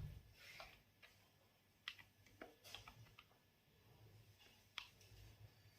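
Faint, irregularly spaced key clicks from a retro typewriter-style Bluetooth keyboard being typed on, a handful of separate keystrokes.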